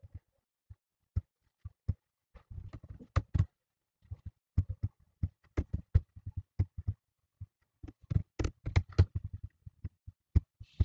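Computer keyboard and mouse clicks: irregular key taps and clicks, some single and some in quick runs, with short pauses between.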